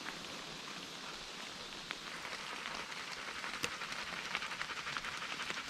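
Heavy rain coming down, a steady patter of drops that grows a little denser and louder about halfway through.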